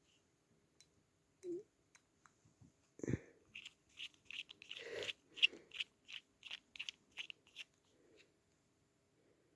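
Small screwdriver prying and scraping at the parts of a small aluminium motor. There is a knock about three seconds in, then a quick run of short clicks, about four a second, lasting some four seconds.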